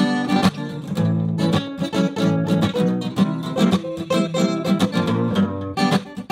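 Outro music on guitar, a quick run of plucked and strummed notes.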